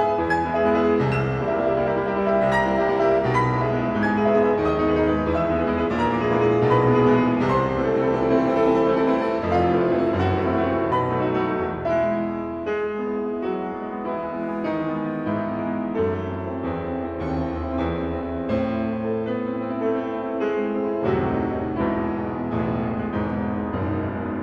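Solo piano playing classical music: quick, densely repeated notes over held bass notes.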